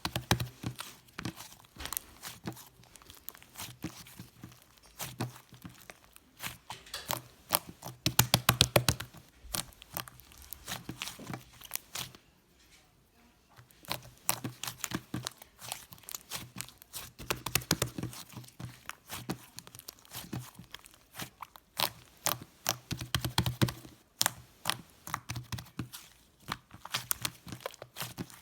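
Stiff white slime being pressed, stretched and folded by hand, giving off bursts of rapid sharp clicks and crackles. The clicking stops for a second or so about twelve seconds in.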